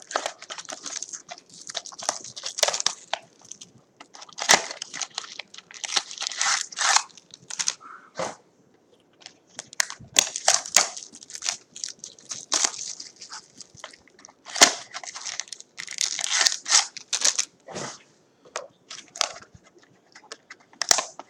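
Cardboard trading-card mini boxes being torn open by hand, with crinkling of packaging and sharp clicks and snaps of card stock, in irregular bursts with short pauses between.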